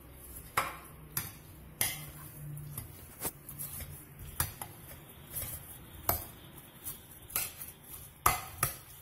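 A spoon stirring chopped pineapple salad in a bowl, knocking and clinking against the bowl's rim and sides at irregular moments, with softer scraping of the wet fruit in between.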